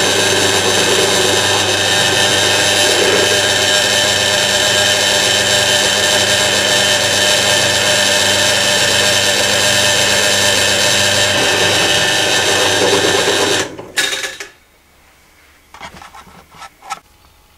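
Benchtop drill press running steadily while drilling into a metal plate. It stops sharply about 14 seconds in, followed by a few light clicks.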